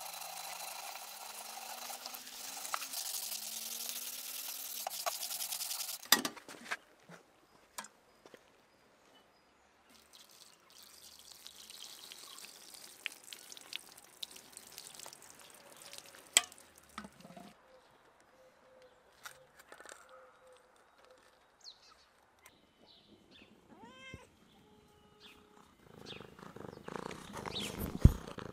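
Steel-wool pad scrubbing the soapy bottom of a stainless steel pot with a steady rasp, stopping abruptly about six seconds in. Then a stream of water runs over the pot to rinse it, with a few sharp clinks. Near the end there is louder rough rustling.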